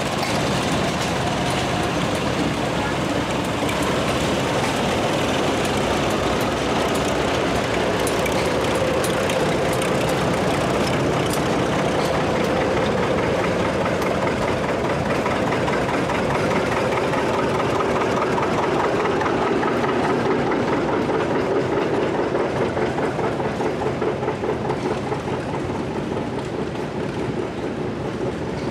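Vintage farm tractor engines running at low speed as the tractors drive past one after another. A regular pulsing beat comes through in the last several seconds.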